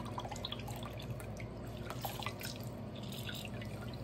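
Lemon juice dripping and trickling from a handheld lemon squeezer into a small bowl of liquid, in small irregular drips.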